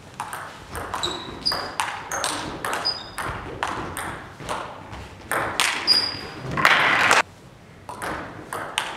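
Table tennis rally: the ball clicks sharply off bats and table in quick alternation, some hits with a short high ping. A louder, longer noise comes just before the rally ends about seven seconds in, and a few more ball clicks follow near the end.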